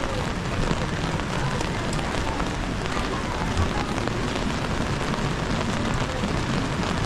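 Steady rain falling on a wet city street and hitting an umbrella held overhead. It makes an even hiss scattered with many small drop ticks.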